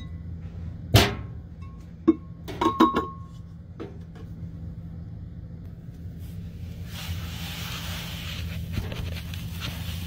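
Glass lid knocking and clinking against a glass storage jar: one sharp knock about a second in, then several ringing clinks a second or two later. From about seven seconds in comes the steady hiss of powdered laundry detergent pouring from a cardboard box into the jar, over a low steady hum.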